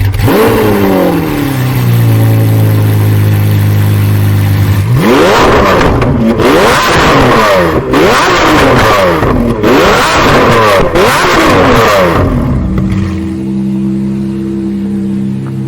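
Mansory-modified Lamborghini Aventador SVJ's 6.5-litre V12 engine, heard through its upgraded exhaust. The revs drop away to a steady idle. About five seconds in, the throttle is blipped again and again for some seven seconds, each rev rising and falling quickly, before the engine settles back to idle near the end.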